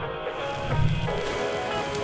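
Music: sustained chords with a low bass note swelling about a second in.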